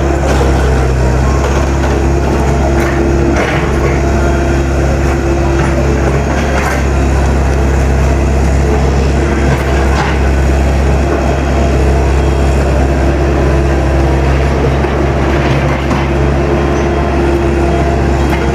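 Heavy digging machine's diesel engine running steadily under load, with a few scattered cracks and knocks as a large tree's roots are pulled out.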